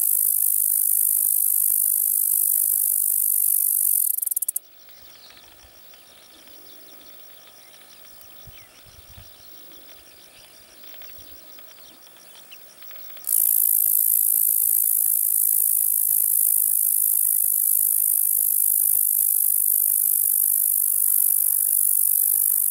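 Bradyporus dasypus bush cricket stridulating: a loud, high-pitched continuous rasping buzz that stops abruptly about four and a half seconds in and starts again just as abruptly about thirteen seconds in.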